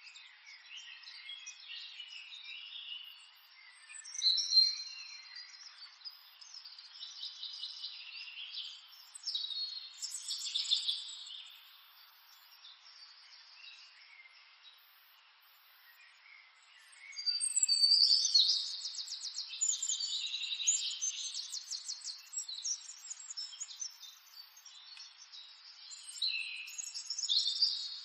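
Small birds chirping and singing, with bursts of rapid trills; the sound is thin and high, with no low end.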